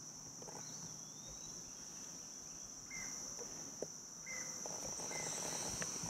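A steady, high-pitched drone of insects, with a few short bird chirps scattered through it.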